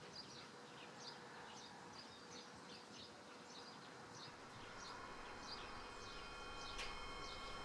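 Faint chirping of small birds: many short, high chirps repeating irregularly over a low hiss. Faint steady tones come in after about six seconds.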